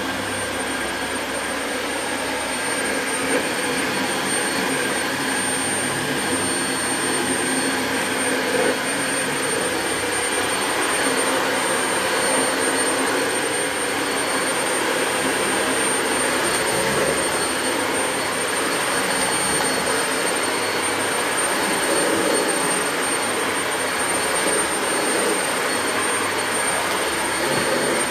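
Dyson Light Ball Multi Floor bagless upright vacuum cleaner running steadily, a constant high-pitched motor whine over the rush of air.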